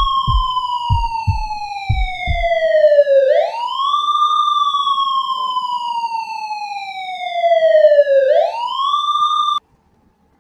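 Police siren wailing: the pitch slowly falls, then sweeps sharply back up, twice, before cutting off abruptly near the end. A few low, evenly spaced thumps sound under the first couple of seconds.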